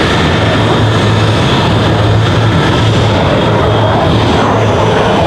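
Eurofighter Typhoon's twin EJ200 turbofans on afterburner, a loud, steady jet roar from the fighter turning hard overhead.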